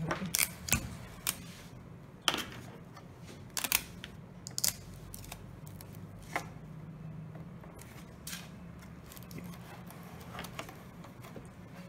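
Clear adhesive tape being pulled off and pressed along a Depron foam-board elevator hinge: a scatter of sharp clicks and crackles over a low steady hum.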